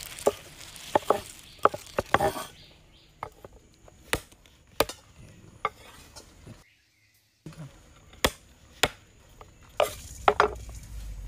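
Large kitchen knife chopping green chillies and garlic on a wooden cutting board: unhurried, irregular knocks of the blade striking the board, with a brief silent break about two-thirds through.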